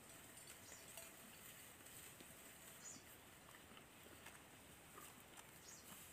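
Near silence: faint background hiss with a few soft ticks from dry grass stalks being twisted and plaited by hand.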